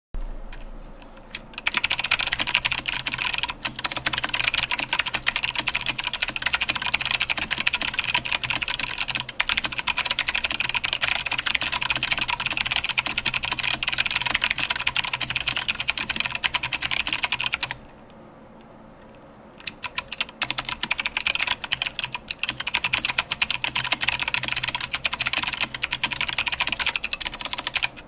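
Fast, continuous typing on a mechanical keyboard with 65g Zealistotle tactile switches, PBT keycaps and an aluminium case. The typing stops for about two seconds a little past the middle, then resumes.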